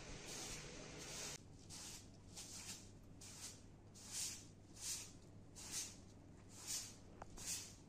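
Short straw hand broom swept across a pile carpet in repeated soft swishes, about one stroke a second.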